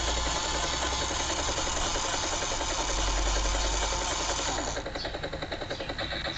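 A GI Joe toy helicopter's built-in electronic helicopter sound, a rapid chopping rotor effect played through the toy's small speaker. About five seconds in it changes to a thinner pulsing with a steady high whine.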